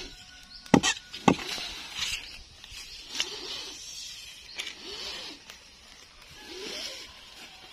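Two sharp knocks about half a second apart, a machete striking the trunk of a felled coconut palm, followed by a lighter click and rustling among dry palm fronds and brush.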